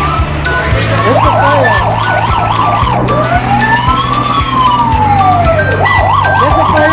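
A siren sound: a fast up-and-down warble, then one slow rise and fall, then the fast warble again. It plays over music with a steady beat.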